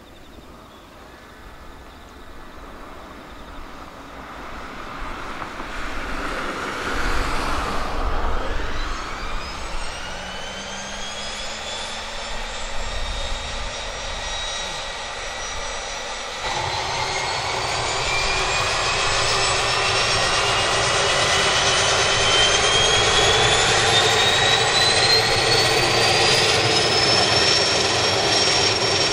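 Quest Kodiak 100's Pratt & Whitney PT6A-34 turboprop starting up: a whine that climbs steadily in pitch as the engine spools up. About halfway through it turns suddenly louder, with a deep rumble underneath, as the engine lights and runs up. The whine keeps rising and levels off near the end.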